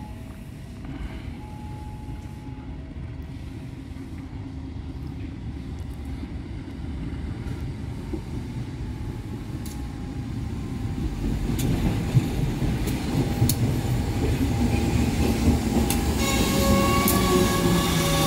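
A diesel locomotive running on its own, without carriages, on a shunting move, coming closer and getting steadily louder. In the second half, wheel clicks over rail joints join the engine rumble, and near the end a steady high-pitched tone comes in.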